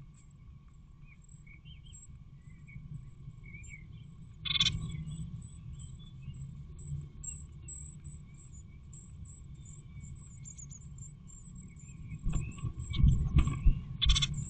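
Blue tit nestlings begging with rapid, thin, very high-pitched cheeps while an adult blue tit feeds them in a wooden nest box. Bumps and rustles of the adult moving on the nest come about four seconds in and again, louder, near the end, over a steady low hum.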